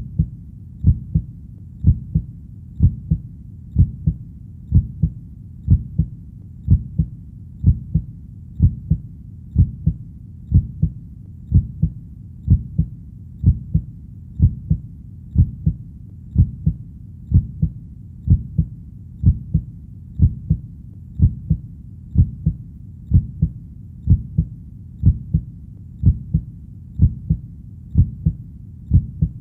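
Heartbeat: a steady double thump, lub-dub, about once a second, low and deep, over a faint continuous background rumble.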